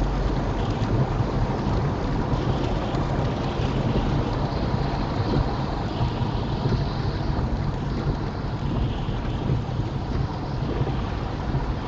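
Inside a small car driving on a wet motorway in rain: steady road roar and hiss of tyres on water over a low engine hum, with rain on the windscreen. The hiss swells briefly a few times.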